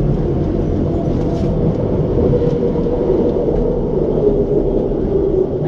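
Vancouver SkyTrain car, driven by linear induction motors, running on its guideway and slowing into a station: a steady rumble with a humming tone that drops a little in pitch after a few seconds.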